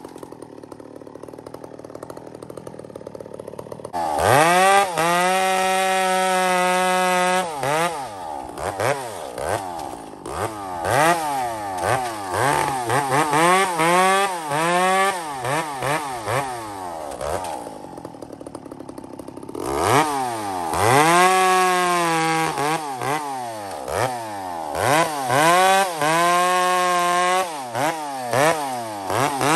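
Long-bar chainsaw idling, then revved to full throttle and bucking through firewood rounds, its pitch dipping each time a cut loads it and rising again between cuts. It drops back to idle for a couple of seconds about two-thirds of the way in, then cutting resumes. The owner judges it running good but a little fat (rich), ready to be tuned.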